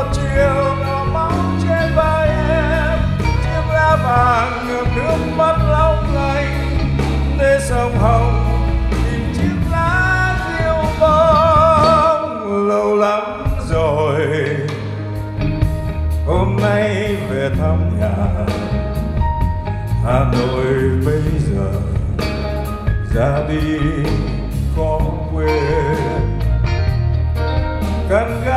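Male vocalist singing a Vietnamese song live with a small band accompanying him on keyboard, bass guitar and violin.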